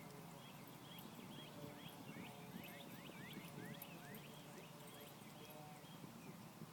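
Faint bird chirping: many short, quickly falling chirps, several a second, over a low steady hum.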